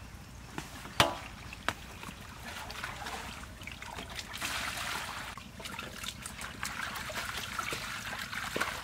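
Water poured from a plastic scoop into a metal basin, with hands swishing leafy greens in a basin of water, pouring and splashing. A sharp knock about a second in, with a lighter one shortly after.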